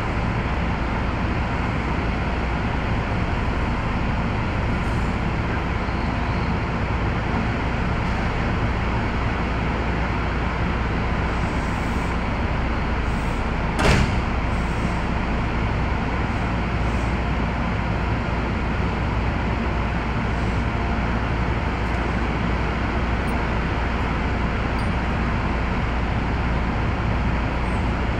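Steady on-board noise of a Keio 7000 series electric commuter train, even throughout, with one short sharp click about fourteen seconds in.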